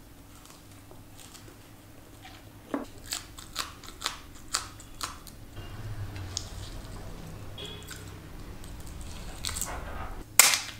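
A person eating: chewing with crisp, crunchy bites. There is a run of sharp crunches about three to five seconds in and one louder burst near the end.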